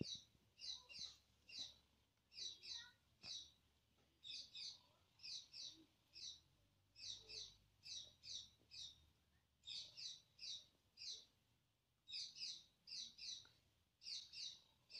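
A small bird chirping over and over: short high notes in twos and threes, about once a second.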